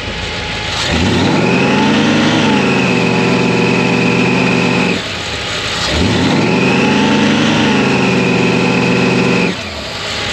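Supercharged 454 big-block V8 with a 6-71 blower revving up twice. Each time it holds a steady pitch for about four seconds before dropping back, with a steady high whine over the engine note while held. The engine is being tested and tuned.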